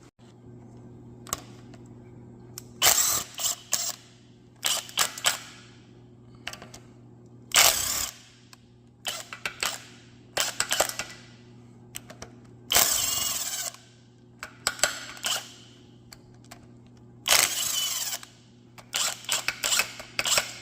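Several short runs of a handheld power tool backing out bolts on a slant six engine's front end, with clicks and clinks of tools and metal parts in between.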